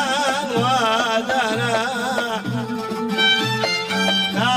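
Yemeni Lahji folk music: a wavering, ornamented melody over a low note that repeats about once a second.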